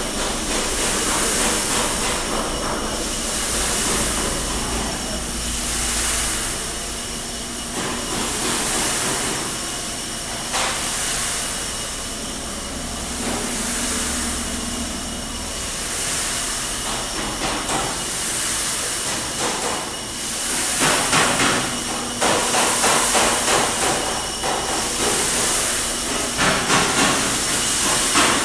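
Probat G75 drum coffee roaster running with its gas burners lit: a steady hiss and rumble, with a high hiss that swells and fades about every second and a half. From about twenty seconds in, a rattling clatter joins it and the sound grows louder and more uneven.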